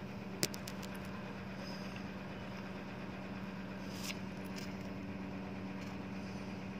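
Steady low machine hum, with a few sharp clicks on top: the loudest about half a second in, another near four seconds.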